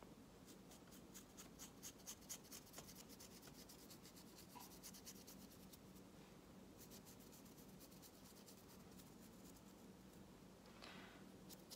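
Faint, rapid scratching of a paintbrush's bristles swept lightly over the wings of a dragon miniature while dry brushing, several strokes a second, in two runs with a pause of about two seconds between them.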